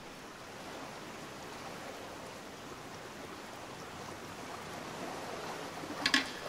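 Steady underwater hiss, the ambient sound picked up by a camera in a dive housing. About six seconds in, a couple of sharp percussive knocks come in, the first beats of a music track.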